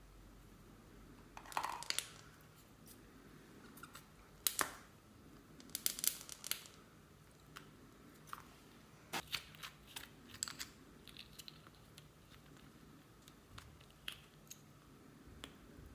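Small plastic tubes and a plastic bag of foam beads being handled: scattered crinkles and sharp little clicks of plastic, coming every second or two, with the loudest around a third of the way in.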